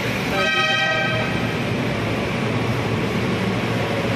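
MRT train horn sounding once for about a second, over the steady rumble of the train approaching the platform.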